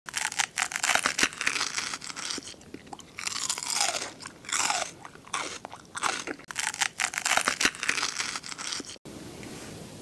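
Close-miked crunchy eating: repeated sharp bites and chewing of crisp food, in quick uneven crunches that stop abruptly about nine seconds in, leaving a faint steady hiss.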